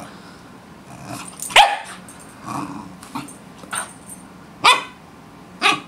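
Pembroke Welsh Corgi puppy barking and grumbling in a string of short, sharp calls about a second apart, the loudest about a second and a half in: corgi 'talking', worked up at a moving foot.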